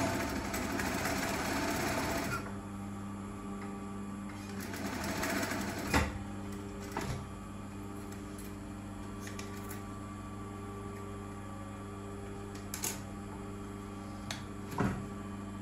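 Brother industrial sewing machine stitching in two short runs: one of about two seconds at the start, and another around five seconds in. Between the runs there is a steady hum, and a few sharp clicks come as the fabric is handled.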